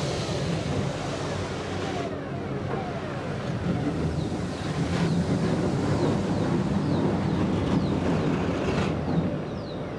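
Car-wash spray jets giving a steady rushing wash of water noise, layered with a low Minimoog synthesizer drone and several short falling synth swoops.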